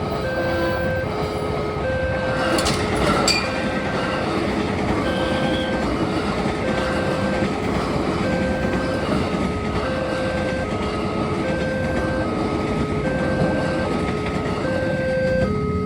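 Railway level-crossing warning siren sounding a steady two-tone electronic alarm, a higher and a lower tone alternating about every 0.8 s, over the continuous rumble and rattle of a train passing over the crossing. Two sharp clacks come about 3 s in.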